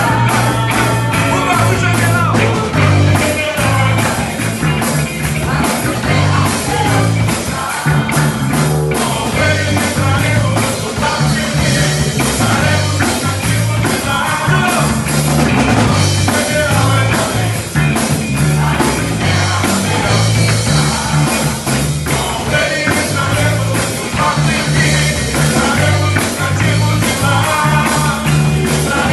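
A band playing rock-style music, with drums, bass and guitar and a singing voice.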